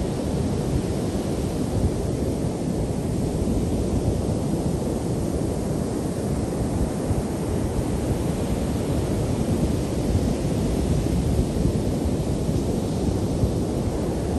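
Pacific surf breaking on a sandy beach: a steady rushing wash of waves, with wind rumbling on the microphone.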